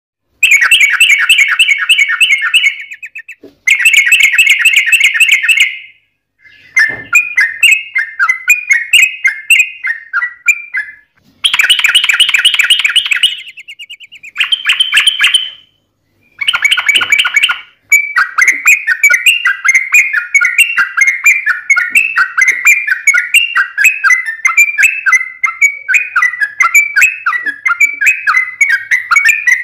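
Yellow-vented bulbul (trucukan) singing its rapid, bubbling 'ropel' song. It comes in several loud bursts with short breaks over the first half, then one unbroken run of quick chattering phrases from about 18 seconds on.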